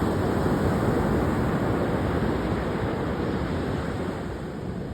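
Ocean waves: a continuous rush of surf noise, strongest in the low range and slowly easing off in level over these few seconds.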